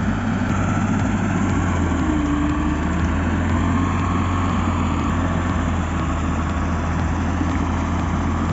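Heavy machinery engine running steadily: a loud, even low drone with no pauses or revs.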